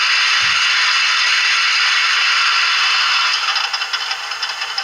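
Sound decoder in a Hornby OO-gauge BR Class 5 steam locomotive model playing a steady steam hiss through its bass-enhanced speaker. About three seconds in, the hiss gives way to a quieter, fast rattling clatter.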